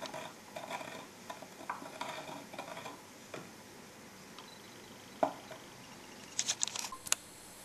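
A wooden stick stirring caustic soda solution in a glass measuring jug, scraping and knocking against the glass in quick strokes for about three seconds. After a lull there is a single knock, then a quick run of sharp clicks near the end.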